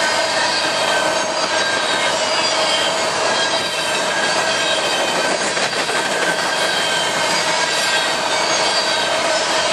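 Empty open-top coal cars of a long freight train rolling past: a steady rattle and rumble of wheels on rail, with a high wheel squeal held in several steady tones.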